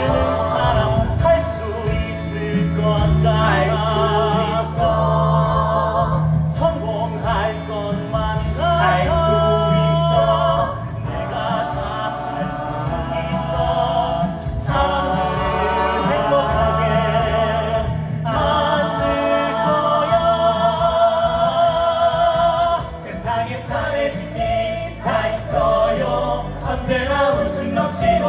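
A man singing a musical-theatre song over instrumental accompaniment.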